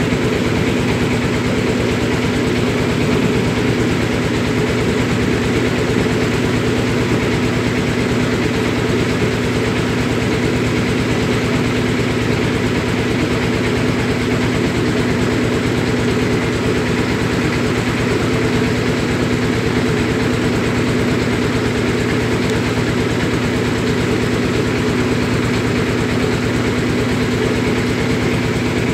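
A boat engine running steadily, a loud low drone with a fast even pulse, heard from aboard the moving boat.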